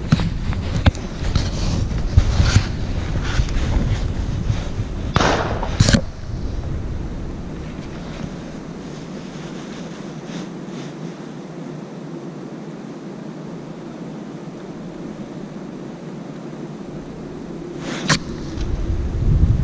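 Wind rumbling on the microphone with rustling for the first few seconds, then a quieter steady stretch, broken near the end by a single sharp crack.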